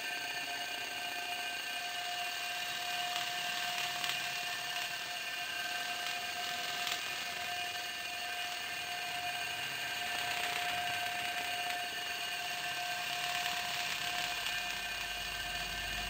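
Scary ambience sound effect: a steady drone of several held high tones over a hiss, with a low rumble swelling in near the end.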